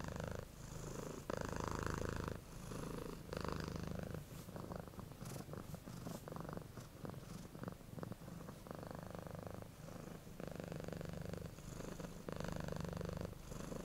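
Domestic cat purring close to the microphone, in swells about every two seconds. A few light clicks come through in the middle.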